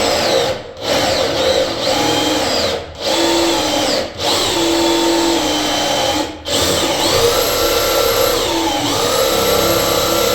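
Power drill boring a 1-inch hole with a pilot bit, its motor whining and sagging in pitch under load. The trigger is let off briefly about four times in the first six seconds, then the drill runs steadily.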